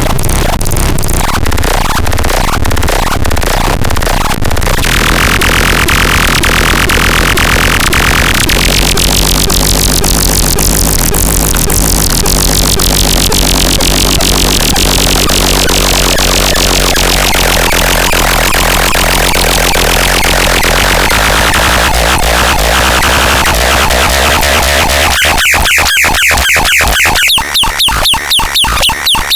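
Synthesizer playing loud, dense noisy electronic sound. Around the middle a sweep rises and falls back, and near the end the sound breaks into a fast, even pulsing.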